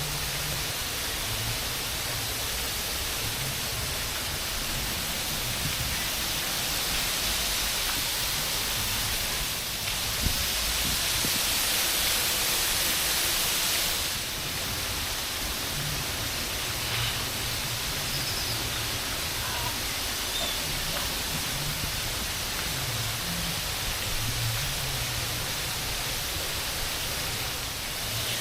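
Steady rushing noise like falling water, with a few faint high chirps of birds. It grows louder and brighter for about four seconds near the middle.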